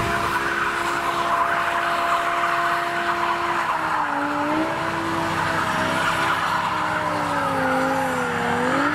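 A modified car's engine held at high revs while its tyres squeal and skid. The engine note holds steady, then from about four seconds in dips and rises unevenly.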